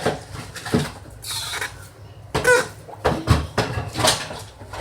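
Air blown through a straw into slime, with irregular pops and crackles as bubbles form and burst.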